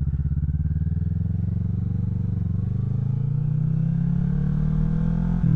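Parallel-twin engine of a 2017 Kawasaki Vulcan 650 S, breathing through an aftermarket CS Racing exhaust, pulling on the road with its note rising slowly as it gains revs. Near the end the pitch drops suddenly, as at an upshift.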